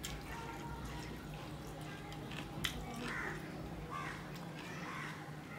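Fingers mixing rice with curry and dal on a steel plate: soft wet squishing, with one sharp click about two and a half seconds in, over a low steady hum.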